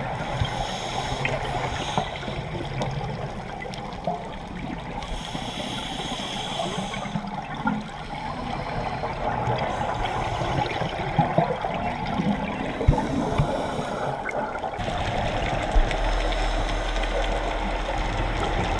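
Underwater sound of scuba diving: bubbling, gurgling and hissing from divers' regulators and exhaled air bubbles, with hiss that comes and goes every second or two. About 16 s in it changes to a steadier low hum.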